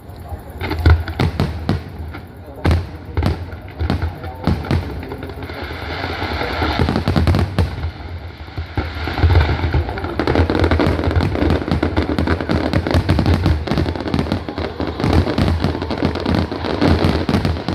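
Fireworks going off: a string of separate bangs, then from about six seconds in a dense, continuous crackling of many small reports.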